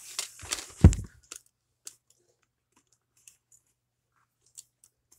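Rustling handling of a DVD in a paper sleeve, with a loud thump about a second in, then only a few faint clicks.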